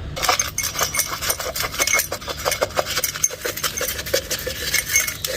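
A metal spoon stirring quickly in a glass, clinking against its sides several times a second, mixing a homemade cough remedy.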